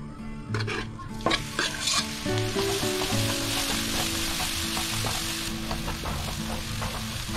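Chopped garlic and shallots dropped into hot oil in a non-stick wok, with a few clicks as the bowl is tipped. Then a loud, steady sizzle from about two seconds in as a slotted spatula stirs them.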